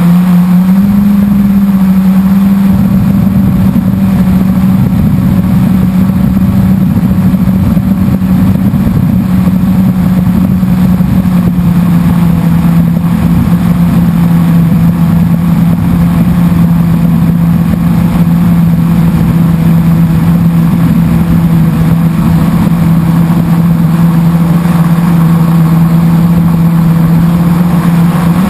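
Blade 350 QX quadcopter's four electric motors and propellers humming steadily in flight, loud and close. The pitch rises briefly about a second in, then settles.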